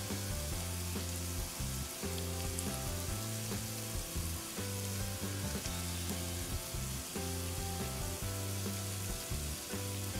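Onions frying in butter in a small pan on a miniature toy electric stove, a steady light sizzle, with soft background music of low held notes underneath.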